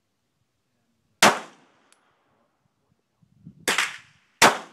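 Three shots from a Smith & Wesson 9mm pistol, loud and sharp with a short echoing tail: one about a second in, then two more about three-quarters of a second apart near the end.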